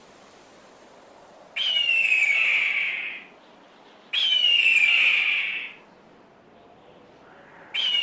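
Hawk screaming: a harsh, falling scream about a second and a half long, given three times a couple of seconds apart, the last starting near the end.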